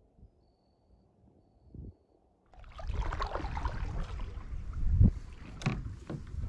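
Faint and muffled for the first couple of seconds, then a kayak being paddled: water splashing and lapping around the paddle and hull, with wind rumbling on the microphone and a few sharp knocks.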